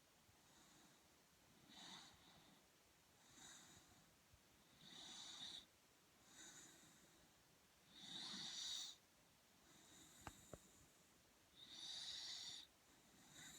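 Soft snoring: a sleeper's breaths come about every one and a half to two seconds, every other one longer and stronger. Two faint clicks come about ten seconds in.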